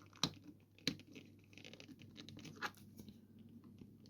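Small plastic parts of a Garmin GPSmap 60CSx handheld GPS being handled and pressed together by hand during reassembly: three faint sharp clicks, the first about a quarter second in, with light scratching and rubbing between.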